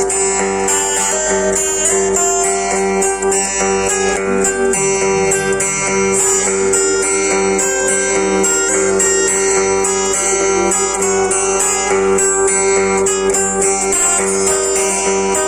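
Acoustic guitar playing a plucked and strummed instrumental passage with a quick, even run of notes, over a steady held tone underneath.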